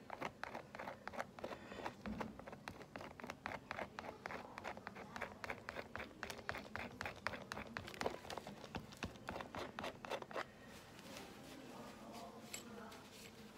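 Metal palette knife scraping and dabbing thick oil-and-cold-wax paint onto a canvas in a quick run of short scratchy strokes, about four or five a second, stopping about ten seconds in.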